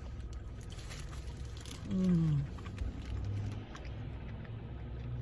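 A woman's closed-mouth "mmm" of enjoyment while chewing, falling in pitch about two seconds in, then a shorter steady hum, over a steady low hum like a parked car's interior.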